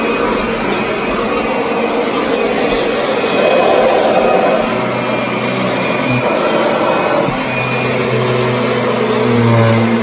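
Upright vacuum cleaner running steadily while pushed across a hardwood floor and onto a rug, with a low hum joining about halfway through.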